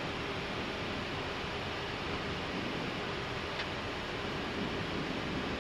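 Steady cockpit noise of an Airbus A319 in descent: an even airflow and air-conditioning hiss with a faint hum, and one brief click about three and a half seconds in.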